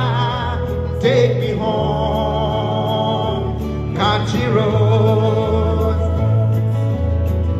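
A street singer's voice amplified through a small portable speaker, singing long held notes with vibrato over a backing track with a slow-moving bass line. New phrases begin about a second in and again about four seconds in.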